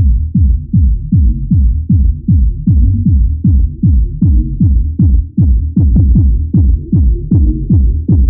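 Electronic techno track: a steady kick drum with a falling pitch on every beat, about two and a half beats a second, over a low bass, sounding muffled with only the low end present.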